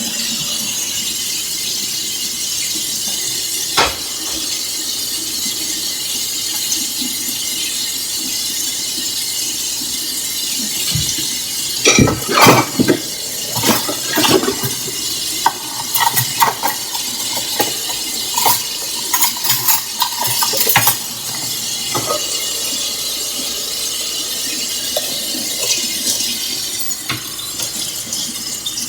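Kitchen work: a steady hiss with clinks and knocks of utensils against dishes, a single knock about four seconds in and a busy run of clinking in the middle.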